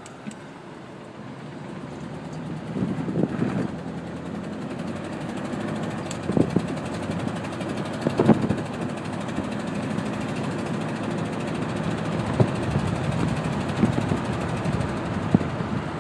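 1987 Chevy K5 Blazer engine idling unevenly, with irregular louder knocks every second or two over the steady running; the knocking and rough idle are the fault the owner wants diagnosed. The running gets louder about two seconds in.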